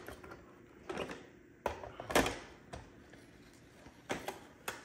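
Hard plastic knocks and clunks of an iRobot Braava 380t robot mop's housing as it is handled, turned over and set down on a tabletop. They are separate knocks spread through the moment, the loudest a little over two seconds in, with a quick cluster of light clicks near the end.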